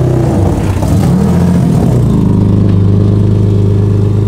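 Turbocharged Nissan 370Z's V6 engine running. The revs waver for about the first two seconds, then settle into a steady idle. The exhaust has a bad leak at its worn downpipe gaskets.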